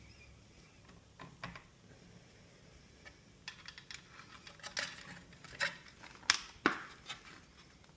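Scattered small clicks and clatters of plastic wiring adapters being handled and plugged in, sparse at first and then more frequent, with the two sharpest clicks near the end.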